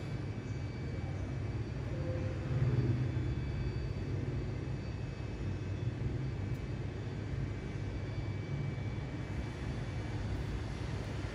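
Steady low outdoor rumble, swelling briefly about three seconds in.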